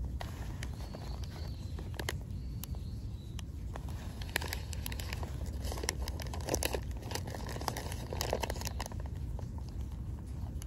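A paper sandwich wrapper crinkling and rustling as it is handled, the crackles thickest in the second half, over a steady low rumble.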